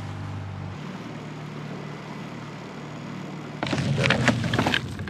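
A small dinghy motor running with a steady low hum. About three and a half seconds in, a black plastic garbage bag is handled, crinkling and rustling loudly for about a second.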